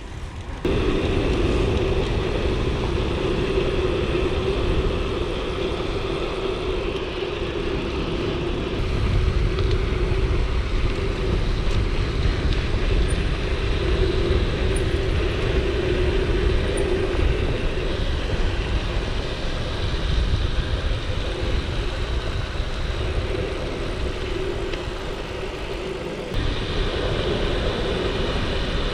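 Mountain bike ridden at speed: steady tyre rolling noise and wind rushing over the action camera's microphone, with a low rumble and a steady hum, picking up sharply just after the start.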